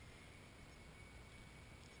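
Near silence: faint steady hiss of room tone with a thin high tone.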